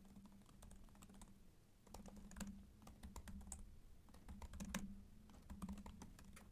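Faint typing on a computer keyboard: quick, irregular key clicks in short runs.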